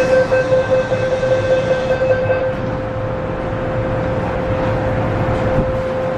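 Running noise inside an MTR M-train metro car: a steady rumble with a constant hum, whose higher overtones fade out about two and a half seconds in.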